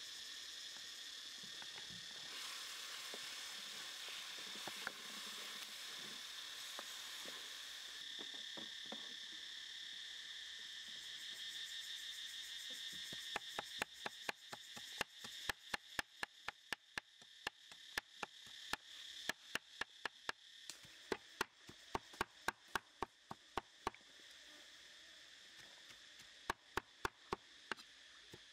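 A steady high-pitched insect buzz, then from about halfway through a cleaver chopping raw chicken on a wooden block in quick sharp strikes, about three a second, with a short pause before a last run of chops near the end.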